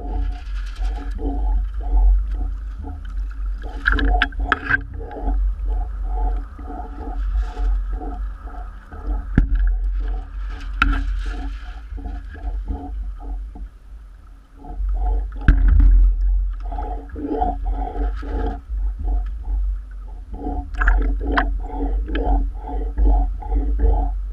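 Choppy lake water sloshing and gurgling against a camera riding at the waterline, over a steady low rumble of wind and water buffeting. Through it runs a regular pulsing knock of about three beats a second, with a few sharp splashes or clicks.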